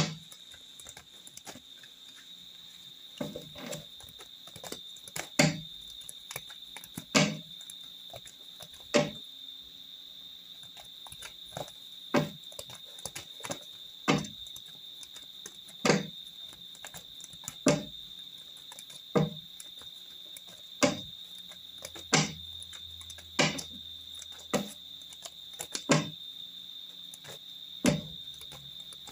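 A deck of tarot cards being shuffled by hand, with a sharp tap or slap of the cards about every two seconds, over a steady high-pitched tone.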